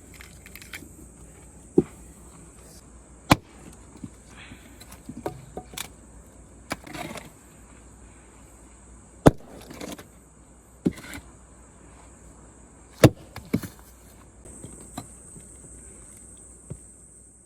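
Firewood being split with an axe: sharp wooden knocks, five loud blows spaced several seconds apart, with lighter knocks and clatter in between. A steady high insect chirring runs underneath.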